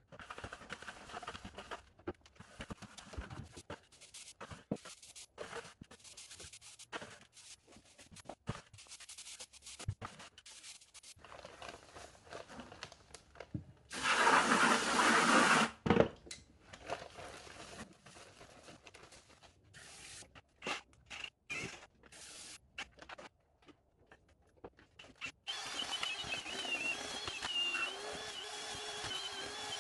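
Mortar being mixed and worked with a trowel: repeated short bursts of scraping and rubbing, cut together. A much louder rush of noise comes about halfway through, and a steadier whirring sound runs near the end.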